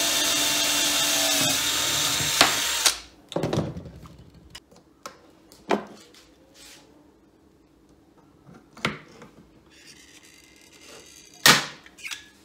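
Cordless drill running and drilling through aluminium box section and plate. Its whine dips as the bit bites about a second and a half in, and it stops just before three seconds. After that come scattered clicks and knocks of tools being handled, with a sharp snap near the end.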